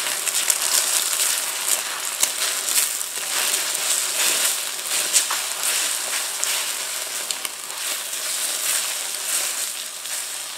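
Beaten eggs sizzling and crackling in hot oil in a wok while a spatula pushes them back and forth to scramble them.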